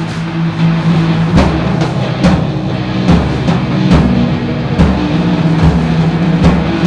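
Soundtrack music: a steady drum beat, about one hit a second, over a held bass note.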